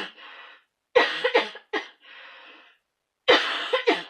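A woman's coughing fit: a cluster of several sharp coughs, a drawn-in breath, then another couple of coughs.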